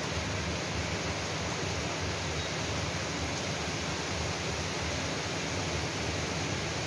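Steady, even hiss of heavy rain falling, with no let-up or single drops standing out.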